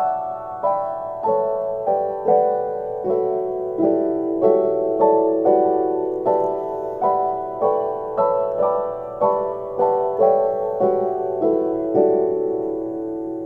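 Background piano music: gentle notes played at about two a second, each one ringing and fading.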